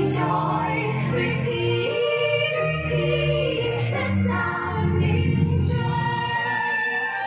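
Choir singing held notes over instrumental accompaniment with a steady low bass line.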